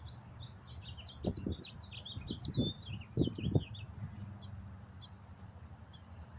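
Small birds chirping in a quick twittering run that thins out about four seconds in, with a few low thuds among the chirps.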